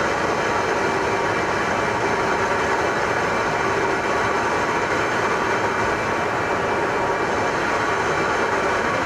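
F-35A Lightning II's Pratt & Whitney F135 turbofan running, a steady rush with faint steady whining tones that holds the same level throughout.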